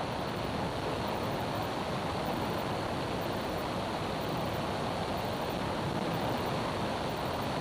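Steady cabin noise of a small propeller airplane in level flight: engine and airflow heard as an even hiss, with no distinct tones.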